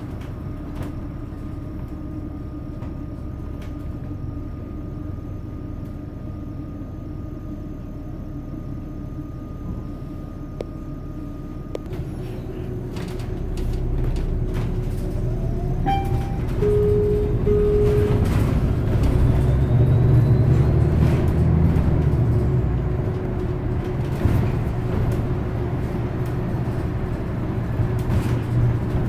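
Cabin sound of a San Francisco Muni New Flyer diesel-electric hybrid articulated bus underway: a steady drive hum at first. From about halfway through, the drivetrain grows louder and a faint rising whine comes in as the bus picks up speed. Two short beeps sound partway through the build-up.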